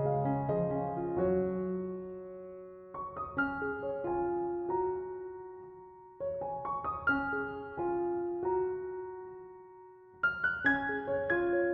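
Background piano music, a gentle melody in phrases that each start with a cluster of struck notes and then ring out and fade.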